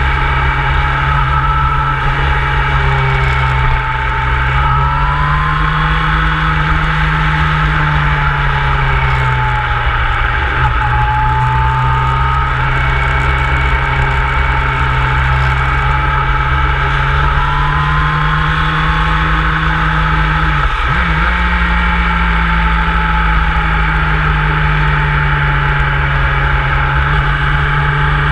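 Motorcycle engine running under way, its note rising and falling slowly, with two brief dips about ten and twenty-one seconds in, over a steady low rumble.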